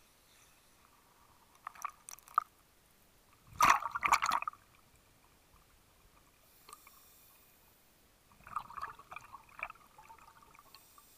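Water gurgling and bubbling in irregular bursts, heard through an underwater camera housing; the loudest burst comes about four seconds in, with another cluster of bubbling near the end.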